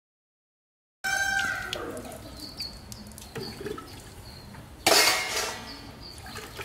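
Dead silence for the first second, then quiet outdoor background with a short animal call; about five seconds in, a brief loud splash of water as a hand works in a bucket of washing-up water.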